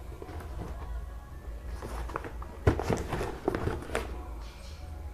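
A cardboard toy box being handled and turned over in the hands: soft rustles and scrapes, with a few sharper taps and clicks in the middle, over a low steady hum.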